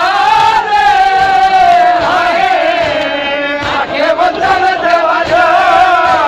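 Men's voices chanting a noha, a Shia mourning lament, in long held, wavering notes.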